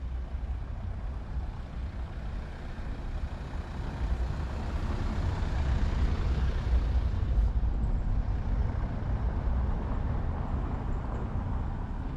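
A motor vehicle passing by, its noise swelling to a peak about halfway through and then fading, over a steady low rumble.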